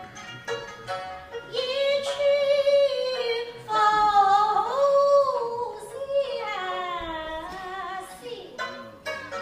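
A woman singing Suzhou pingtan in long, wavering held notes that glide between pitches, with pipa and sanxian accompaniment. A few plucked notes come first, and the voice enters about a second and a half in.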